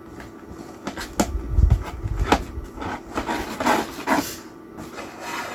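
Hands working a doll free from its cardboard and plastic box insert: rubbing and scraping of the packaging, with a few sharp clicks and knocks.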